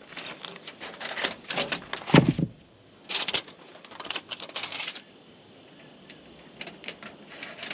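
Aluminium foil tape crinkling and crackling as it is pulled from the roll and worked around a stovepipe joint, in uneven runs of sharp clicks. A brief low sound comes about two seconds in.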